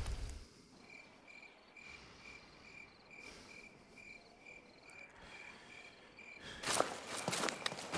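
Crickets chirping in a night ambience, a regular high chirp about two or three times a second. Near the end, loud footsteps come in.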